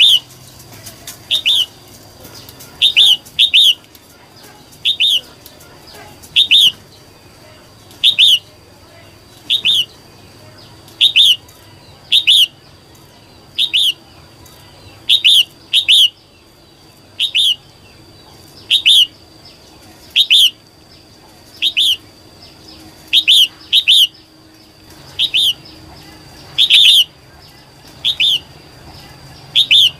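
Female red-whiskered bulbul giving short, sharp calls about every one and a half seconds, now and then two in quick succession: the female call used to excite young and male bulbuls.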